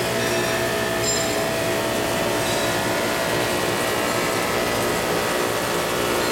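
PVC shrink film blowing machine running: a steady mechanical whir from its motors, air blower and rollers, holding several steady tones.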